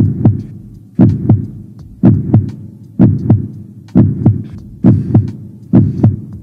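Heartbeat sound effect: low paired lub-dub thumps about once a second, coming a little quicker near the end.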